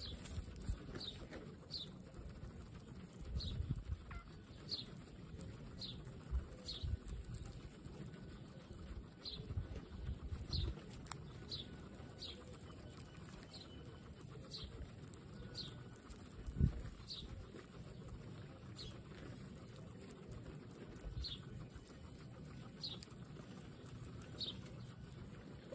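Guinea pigs munching fresh grass close up: irregular low crunching and rustling of chewing and grass blades. Over it, a small bird chirps repeatedly, a short high falling note about once a second, and one thump stands out about two-thirds through.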